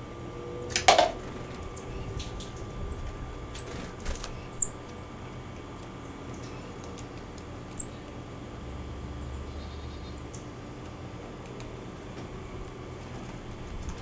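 Red-bellied woodpecker pecking at suet in a wire cage feeder: a few scattered sharp knocks, the loudest about a second in.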